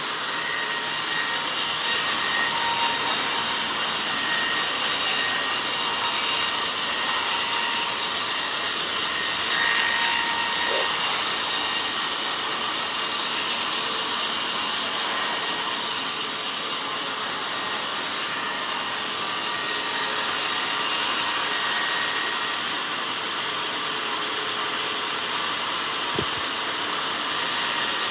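Sawmill band saw cutting lengthwise through a log: a steady noise, mostly high-pitched. It eases slightly about eighteen seconds in and again for a few seconds near the end.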